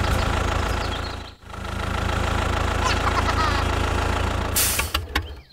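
Engine idling with a steady low rumble; it drops out for a moment about a second and a half in and picks up again. There is a short hiss just before it fades near the end.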